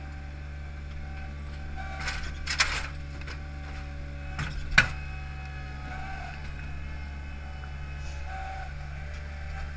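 Hydromak paving machine's engine running steadily, with a short clatter a little after two seconds and one sharp clack near five seconds as its Probst clamp grips a layer of H-profile concrete pavers and the stones knock together.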